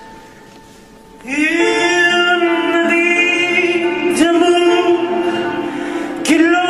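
A man singing long, held notes, each entering with an upward swoop in pitch; the first comes in about a second in, and new phrases start around four seconds in and again near the end. A faint steady tone is heard before the voice enters.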